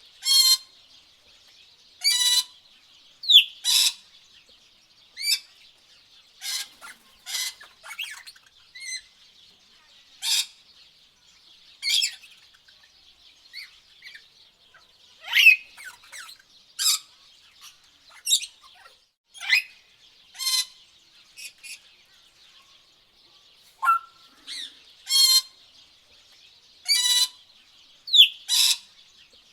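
Tropical birds calling: short, sharp, high-pitched calls every second or two over a faint, steady high hiss.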